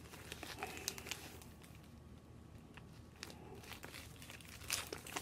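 Paper wrapping rustling and crinkling faintly as it is handled and unfolded, with a quieter stretch about halfway through and a few sharper crinkles near the end.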